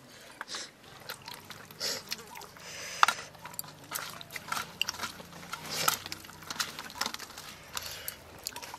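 Eating with the hands from steel plates: fingers squishing and mixing rice with curry, wet chewing and lip smacks, with scattered small clicks of steel dishware and a sharper clink about three seconds in.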